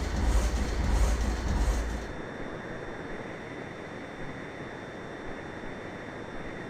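Noise in a Cessna 172: a loud low rumble with a faint regular pulse, dropping abruptly about two seconds in to a quieter steady hiss with a thin high whine.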